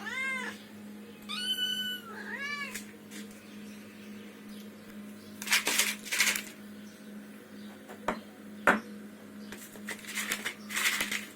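A domestic cat meowing three times in quick succession, each meow rising and falling in pitch. Later come several short, sharp noisy sounds, the loudest a sudden click a little before the end, over a steady low hum.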